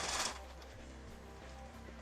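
Background music with steady held notes, after a harsh rasping noise cuts off suddenly just after the start.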